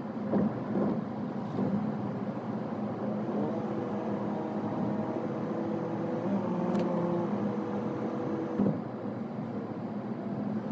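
Car driving, heard from on board: steady engine hum and road noise. For several seconds in the middle the engine holds one even pitch.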